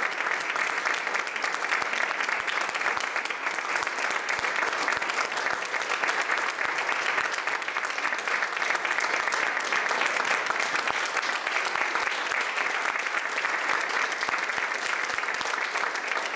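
Audience applauding steadily, a dense patter of hand claps that holds at the same level throughout.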